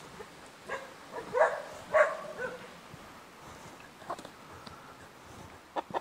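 A dog barking about four times in quick succession, short calls with the loudest two in the middle.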